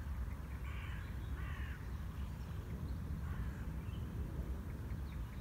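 A crow cawing, three harsh calls in the first few seconds, over a steady low rumble.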